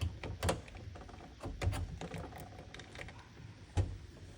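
Irregular clicks and knocks of hand tools and plastic parts being worked inside a dishwasher, with a sharper knock about half a second in and another near the end.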